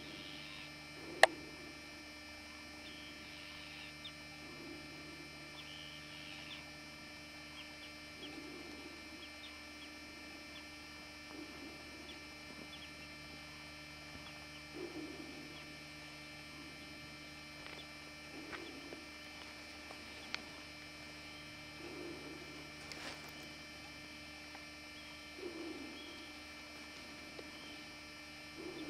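A steady electrical hum, with a soft low sound recurring about every three and a half seconds and a sharp click about a second in.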